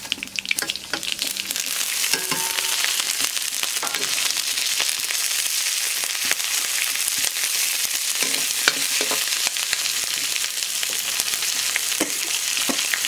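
Mustard seeds, dried red chillies and green chillies sizzling in hot coconut oil in a large kadai, the sizzle building over the first couple of seconds as they go in and then holding steady with scattered crackles. A metal ladle stirs them around the pan: the tempering that starts the dish.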